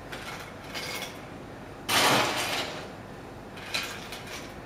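Ice cubes being put into a glass cocktail shaker over muddled mint and lime: a few light clinks and knocks, with one louder rattling clatter about two seconds in.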